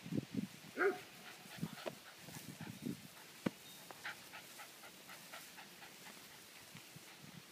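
Six-week-old Scottish terrier puppies at play: short low growls in the first second, then a brief high whine about a second in, followed by fainter small noises.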